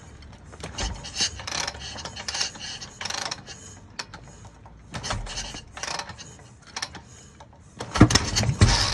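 Kick-start mechanism of a Harley-Davidson Shovelhead chopper being worked: irregular clanks and ratcheting of the kick lever and starter gears, with the engine not running. A louder, deeper burst comes about eight seconds in.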